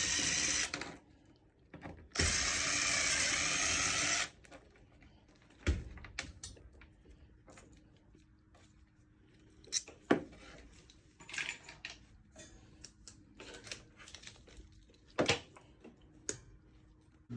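Cordless screw gun running in two spells, about a second and then about two seconds, backing out mounting screws, followed by scattered clicks and knocks of small parts and screws being handled.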